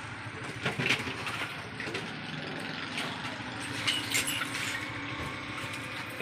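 Broken fridge-door glass and drink cartons being gathered off a floor: a few scattered clinks and scrapes of glass, about a second in and again around four seconds in, over a steady background hum.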